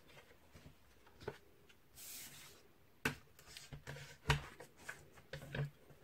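Sheet of cardstock being handled and laid onto a plastic scoring board: a soft paper slide about two seconds in, then several sharp clicks and light taps as the card and scoring stylus are set in place.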